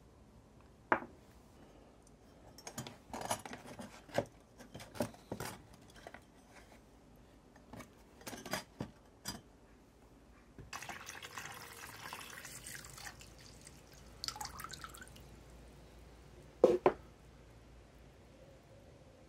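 Small metal parts clinking and tapping against a container, then liquid running into it for about four seconds, and two loud clinks close together near the end: rust-removal soaking being set up.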